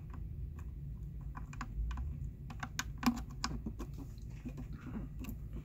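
Small plastic clicks and rattles of hands handling the Carmanah 650 marine lantern's housing as its battery connector is plugged back into the socket, the sharpest click about three seconds in, over a low steady hum.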